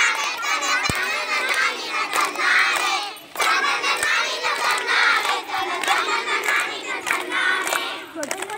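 A crowd of schoolchildren shouting and cheering together, many voices at once, with a short lull about three seconds in.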